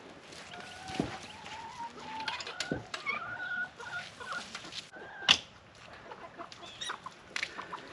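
Chickens clucking and calling, with drawn-out wavering calls over the first few seconds. Several sharp knocks are mixed in; the loudest comes about five seconds in.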